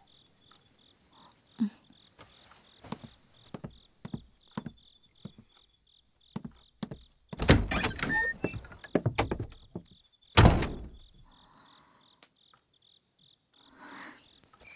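A faint chirping repeats steadily throughout, with scattered light knocks. About seven seconds in comes a burst of rustling and clatter, then a single loud thud about ten and a half seconds in.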